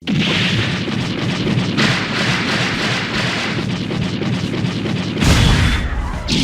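Anime explosion sound effect: a heavy blast that starts suddenly and carries on as a dense rumble, with a second, deeper surge about five seconds in.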